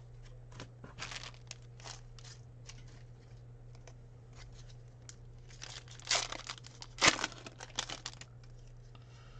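Foil trading-card packs being torn open by hand, with short rips and crinkling of the wrappers. The tearing is loudest in a cluster about six to seven and a half seconds in.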